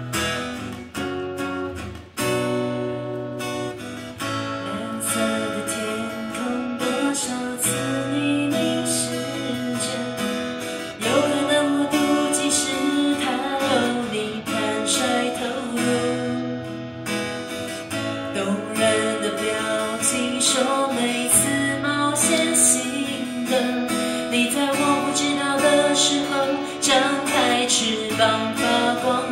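Live acoustic band: a steel-string acoustic guitar strummed over a cajon beat, with a woman singing a pop ballad.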